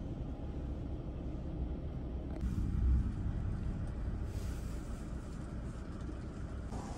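Minibus engine running, a steady low rumble heard from inside the passenger cabin.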